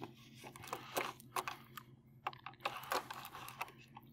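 Fingers digging into a block of ordnance gelatin to work a fired bullet out. Irregular faint clicks and ticks.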